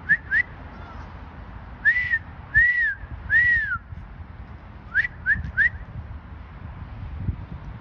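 A person whistling to call a dog: three quick rising chirps, then three longer whistles that rise and fall, then three quick rising chirps again.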